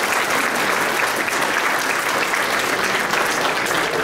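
Large seated audience applauding, many hands clapping at a steady level.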